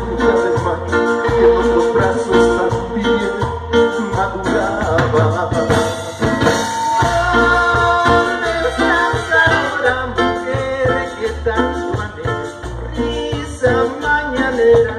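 A live Latin dance band playing a song: saxophones, guitar and drums over a rhythmic bass line.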